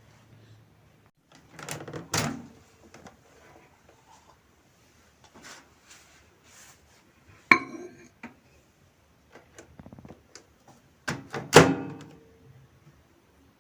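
Microwave oven being handled: scattered thunks and knocks of its door being opened and shut, with one sharp knock that rings briefly about halfway through. The loudest thunks come near the end.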